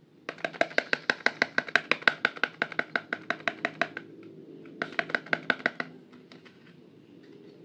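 Fingers tapping rapidly on a small cardboard soap box, about six hollow taps a second. A run of about four seconds, a pause, then a shorter run of about a second, trailing off into a few faint ticks.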